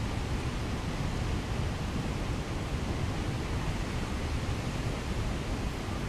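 Steady, unbroken rush of the Krimml Waterfalls' falling water.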